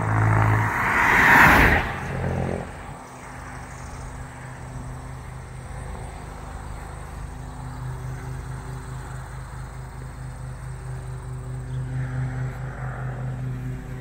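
A car drives past close by, its tyre and engine rush loudest about a second and a half in and fading away by about three seconds in.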